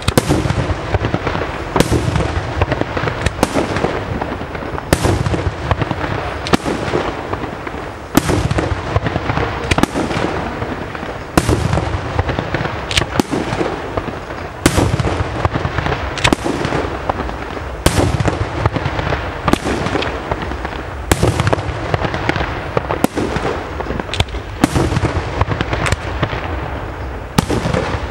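Aerial firework shells bursting in quick succession, a sharp bang every second or so, over a continuous crackle and rumble.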